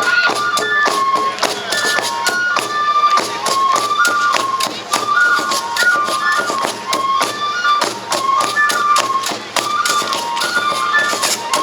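Traditional Japanese deer-dance music: a high flute melody of held notes over fast, steady drumbeats.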